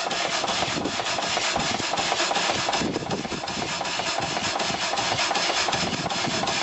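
Small stationary steam engine running at a steady speed, its running gear making a fast, even clattering beat.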